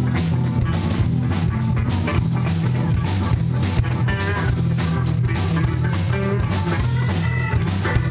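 Live blues-rock band playing, electric guitar prominent over bass, drums and keyboards.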